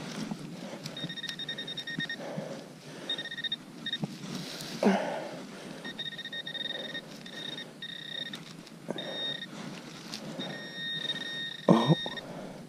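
A metal detector's steady, high-pitched target tone, sounding in about six stretches of half a second to two seconds, signalling the metal target inside the plug of dug soil as it is worked apart. Soil and glove handling rustles run between the tones, loudest about five seconds in and near the end.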